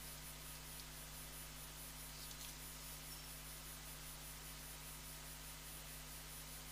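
Faint steady electrical hum under a light hiss: the background noise of the recording microphone, with nothing else happening.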